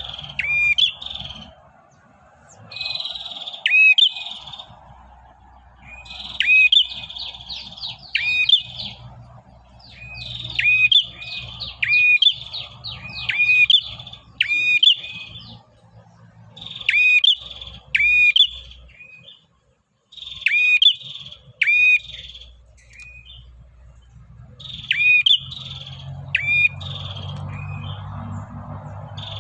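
Male prenjak (prinia) singing continuously: repeated bouts of rapid, sharp chirping notes, each bout lasting a second or two with short pauses between, the call a male uses to attract a female.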